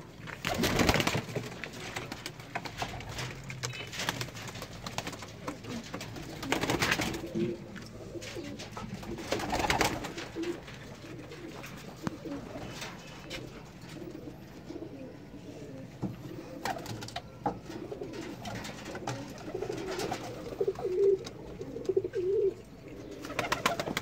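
Domestic pigeons cooing in a small loft: low, wavering coos repeated throughout. A few brief louder rustles come through, the loudest about a second in and near the end.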